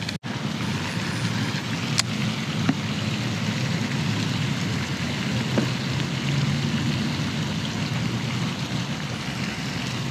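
Steady low outdoor rumble with no voices, with one sharp click about two seconds in.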